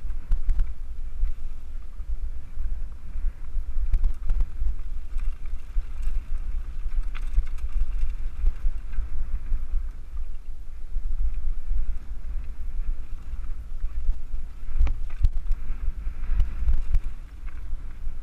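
Wind buffeting a helmet-mounted camera's microphone on a moving mountain bike, a heavy low rumble, with tyre noise on a rocky dirt trail and scattered knocks and rattles from the bike over the stones.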